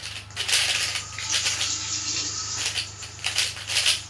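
Moyu LiYing 3x3 speedcube being turned rapidly in a solve: a fast, continuous run of plastic clicks and clacks.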